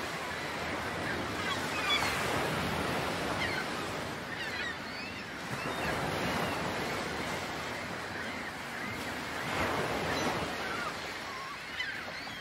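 Ocean surf: waves breaking and washing, the rushing noise swelling and easing every few seconds.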